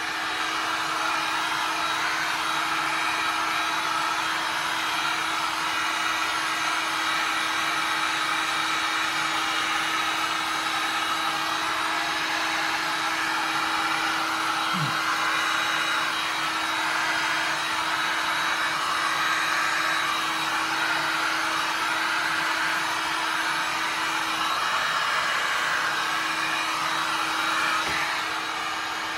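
Heat gun running steadily, blowing hot air across wet resin: an even rush of air over a steady motor hum.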